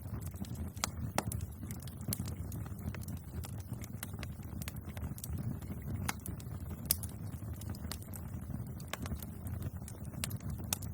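Bonfire burning with a steady low rumble and irregular sharp crackles and pops, one pop standing out about seven seconds in.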